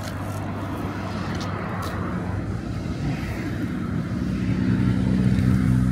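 A motor vehicle's engine running close by, a steady low hum that grows louder over the last couple of seconds.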